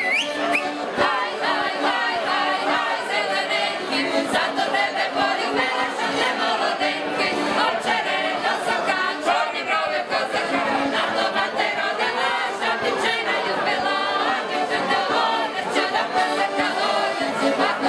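Mixed folk choir of women's and men's voices singing a Ukrainian folk song a cappella, with no instruments.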